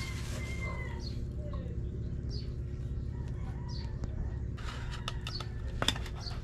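Birds chirping in short calls over a steady low hum, with a few sharp clicks or taps in the second half, one louder than the rest near the end.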